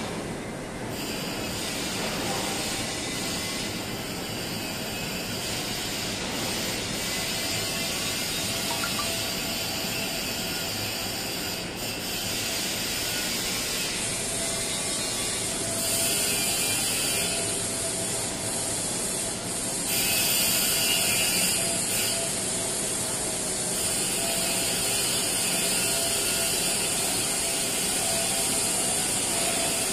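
Steady mechanical din of a factory hall's machinery: a constant hiss over a hum with a few steady tones, getting a little louder twice for a few seconds past the middle.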